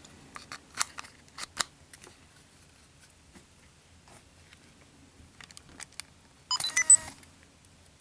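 Small sharp plastic clicks as a coin-cell battery tray is handled and slid back into a small infrared remote control, then about six and a half seconds in a short run of electronic beeps from a Fujifilm digital camera.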